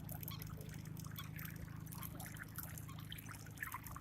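Water trickling and splashing in small irregular bursts, over a steady low hum.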